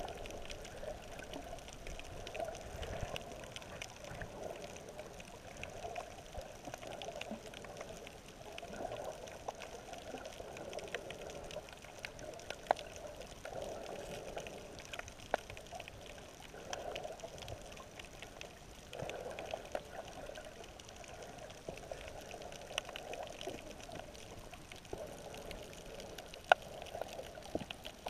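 Water sound heard underwater: a muffled rushing that swells and fades every couple of seconds, with scattered sharp clicks.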